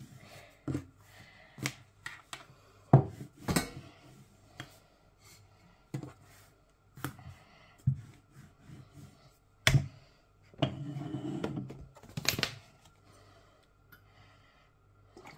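Paratha dough being rolled out and handled on a kitchen countertop: irregular knocks and taps, with a stretch of rubbing about ten and a half seconds in.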